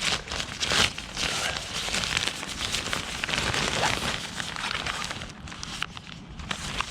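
Rustling and crinkling of a bag and its contents being rummaged through and unpacked, with scattered small clicks and knocks, busiest in the first few seconds and easing off toward the end.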